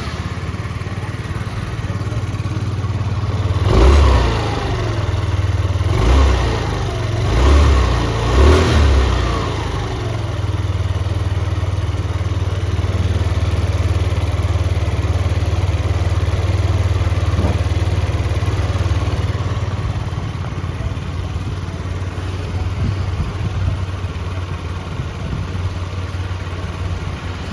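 RS100 scooter engine running steadily, its throttle blipped four times in quick succession a few seconds in, then settling back to a steady run.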